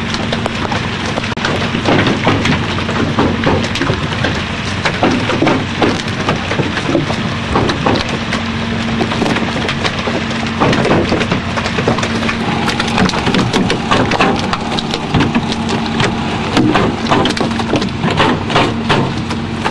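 A boat engine running steadily, under a dense, irregular crackle of many small sharp clicks.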